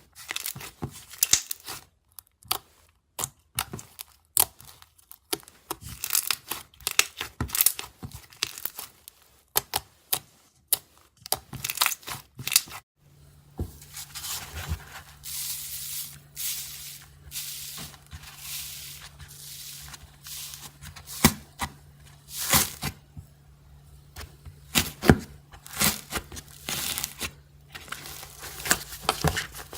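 Iceberg slime's hardened crust crackling as it is pressed and broken up by hand: a dense string of sharp, irregular crackles and crunches. A faint steady low hum sits behind it from about halfway.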